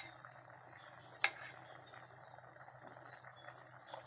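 A metal spoon clinks once against the soup pot about a second in as soup is ladled out, over a faint steady hiss from the pot on the lit gas burner.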